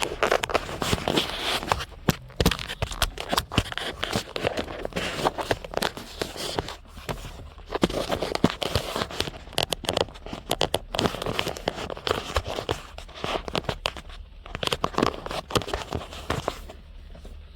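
Rapid, irregular plastic clicking, scraping and crackling close to the microphone as hands handle and work at the plastic headlight switch and dash trim, thinning out near the end.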